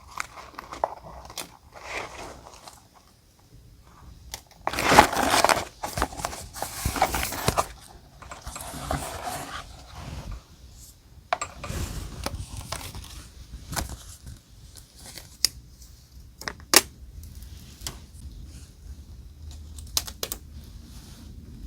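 Paper and die-cut pieces being handled for journal decorating: rustling, tearing-like paper noise that is loudest about five seconds in and runs until about nine seconds, then scattered light taps and clicks.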